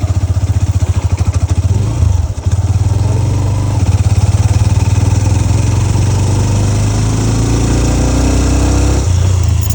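Hero Xtreme 125R's single-cylinder engine running as the motorcycle is ridden, under heavy wind rumble, with the engine pitch climbing in the second half.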